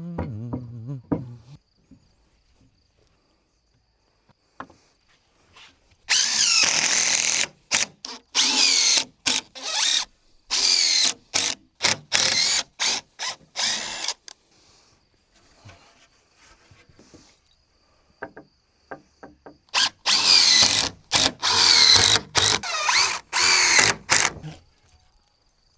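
Power drill running in repeated short, stop-start bursts, its motor pitch rising and falling with each squeeze of the trigger, in two runs: one about six seconds in and another near the end.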